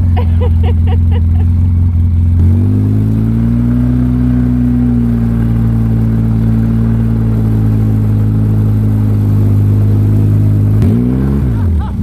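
Engine of the vehicle towing a wakeboarder on snow: it idles low, then revs up about two and a half seconds in and runs steadily at towing speed. Near the end it briefly rises and then drops.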